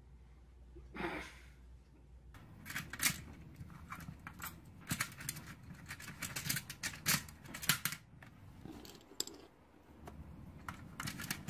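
Plastic Connect Four discs and grid clicking and clattering in quick irregular clusters as a coati handles the discs and pushes them into the slots.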